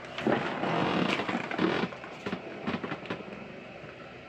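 Rustling, scraping and a few knocks from the camera being handled and moved, loudest over the first two seconds, then quieter with scattered clicks.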